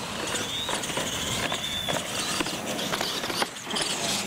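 Radio-controlled monster trucks racing: their motors whine up and down in pitch as the drivers work the throttle, with several sharp clatters as the trucks hit ramps and land on concrete.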